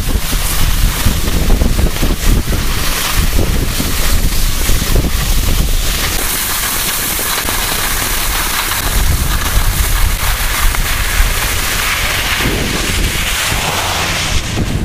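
Wind noise on the microphone and skis hissing over snow during a fast run down a groomed slope.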